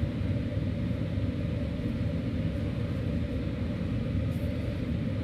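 Room air conditioner running loud: a steady, even low rumble.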